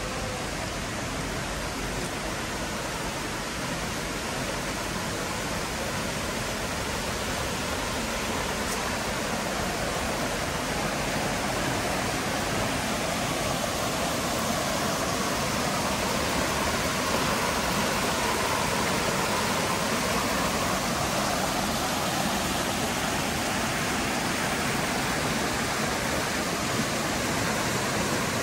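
Steady rush of falling and flowing water, a continuous hiss without breaks, growing slowly louder.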